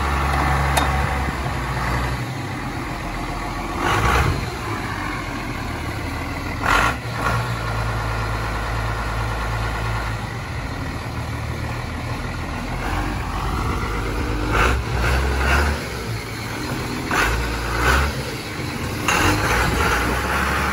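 John Deere 6800 tractor's six-cylinder turbo diesel engine running steadily near idle, with a few short louder bursts along the way.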